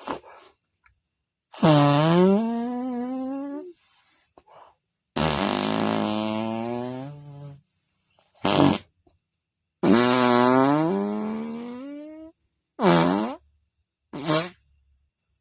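Imitation fart sounds made by people, six in a row: three long, drawn-out, buzzing ones with wavering pitch and three short blasts.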